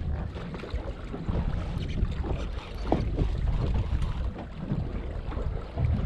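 Wind buffeting the microphone out on open water aboard a small boat: an uneven low rumble with faint sea noise beneath it.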